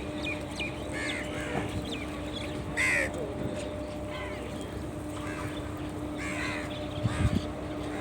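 Crows cawing, several separate harsh calls, the loudest about three seconds in, over a steady low hum. A few low thumps come near the end.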